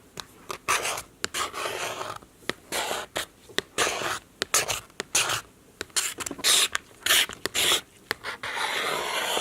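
Metal screwdriver scraping back and forth across a laptop's casing in repeated rasping strokes, roughly two a second, with one longer scrape near the end.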